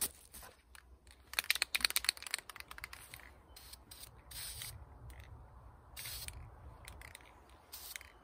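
Aerosol spray can sprayed in three short hisses, each about a second and a half apart, after a quick run of rattling clicks about a second in.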